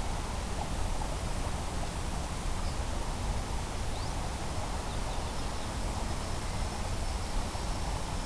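Steady outdoor ambience: wind rumbling on the microphone with a rushing hiss, and a few faint high chirps.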